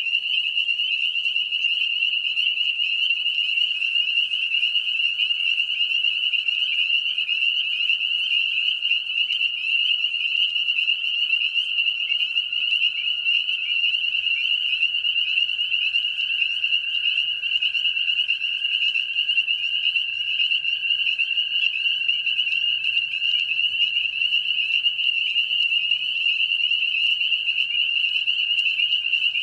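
Chorus of spring peepers, many males peeping at once so the high-pitched calls run together into one dense, continuous chorus. It is their mating call.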